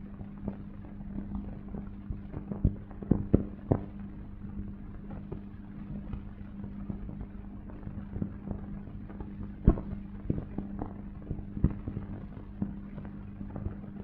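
Steady low mains-like hum with irregular clicks and pops scattered through it, typical of the soundtrack noise of an old film with no narration; the loudest pops cluster about three seconds in and near ten seconds.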